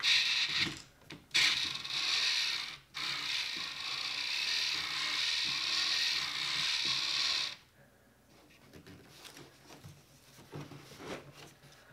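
A hand fuel pump and its strap on a plastic diesel can being worked by hand: a steady rasping noise that breaks off briefly twice early on and stops about seven and a half seconds in, followed by a few faint handling knocks.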